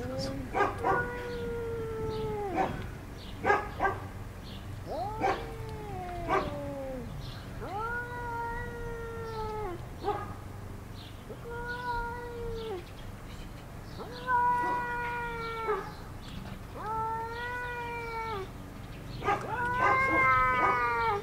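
Two domestic tabby cats in a standoff, caterwauling at each other: a series of about eight long, drawn-out yowls, each a second or two long, rising slightly and then sagging in pitch. A few short sharp sounds come in the first four seconds.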